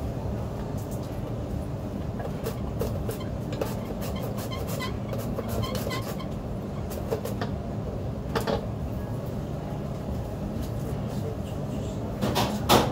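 Steady low machine hum in a restaurant kitchen, with scattered clinks and clatter of dishes and utensils, and a louder clatter near the end.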